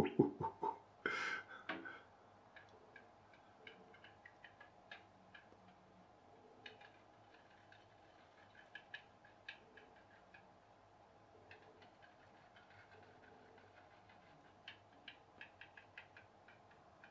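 Home-made pop-pop (putt-putt) steam boat running, its coiled aluminium tube boiler heated by a tea light: faint, rapid ticking that comes in irregular runs every couple of seconds. A short, louder burst of noise comes in the first two seconds.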